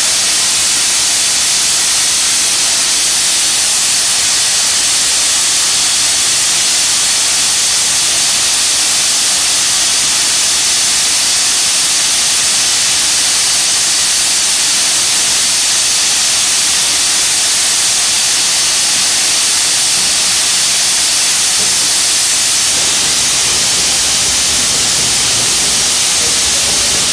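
Loud, steady hiss of steam escaping from a standing steam tank locomotive. From about 22 seconds in, the low rumble of an electric Underground train running past joins the hiss.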